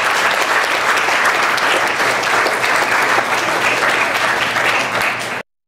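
Audience applauding steadily, a dense patter of many hands clapping, which cuts off suddenly near the end.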